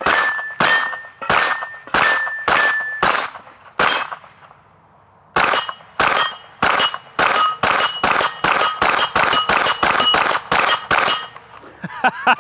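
Suppressed 9mm shots from a Stribog SP9A3G roller-delayed carbine fitted with a Witt Machine suppressor, each followed by a steel target clanging and ringing. A string of shots about half a second apart, a short pause, then a faster run of shots in which several plates ring at different pitches.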